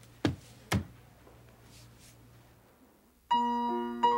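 Two sharp thumps about half a second apart as a book is shut and set down on a wooden desk, then quiet room tone. A little over three seconds in, keyboard music with sustained piano-like notes starts suddenly.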